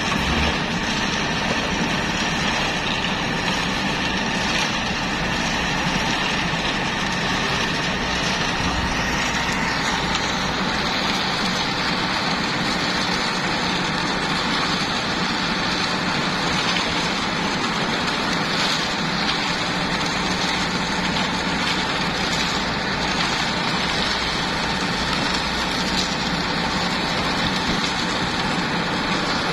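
Diesel engines of a Komatsu PC78US excavator and a mini concrete mixer truck running steadily together as the excavator loads the mixer.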